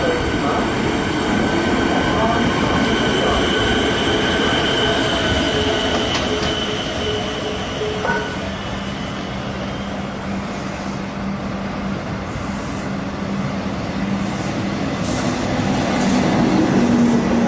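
Electric suburban trains running through a station: one pulls away with a steady whine of several tones. A second train then comes in alongside the platform, growing louder near the end.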